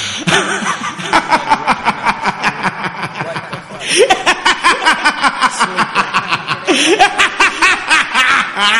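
A person laughing hard in rapid, repeated bursts, getting louder about four seconds in.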